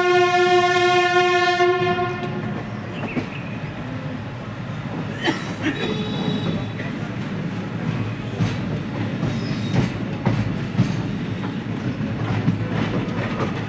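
A train horn blows a single steady note that stops about two seconds in. After it comes the steady rumble and clatter of a moving passenger train's wheels on the rails, with irregular clicks at the rail joints.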